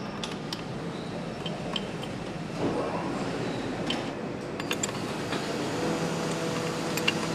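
Factory assembly-floor noise: a steady machinery hum with scattered light metallic clinks and taps of parts and tools. A steady low hum comes in about six seconds in.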